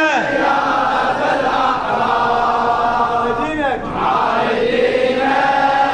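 Men's voices chanting a Shia Muharram latmiya refrain together, long held notes that slide in pitch, in an echoing hall.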